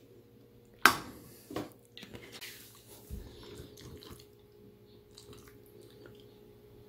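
Metal spoon clinking and scraping against a bowl as bibimbap is stirred together: one sharp clink about a second in, a smaller one shortly after, then a run of softer clicks and scrapes that dies away after a few seconds.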